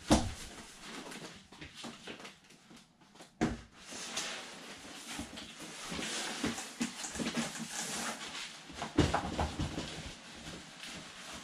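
Cardboard boxes scraping and rustling against each other as an inner box is pulled out of a large outer shipping box, with a sharp knock near the start and others about three and a half and nine seconds in.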